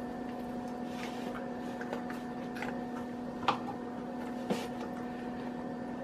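Faint rustling and soft squishing of hands pushing celery stalks into a raw turkey inside a plastic roasting bag, with a few small clicks, the clearest about three and a half seconds in, over a steady electrical hum.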